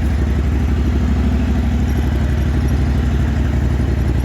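Riding mower's small engine running steadily as it drives along in low range, with an even, regular beat.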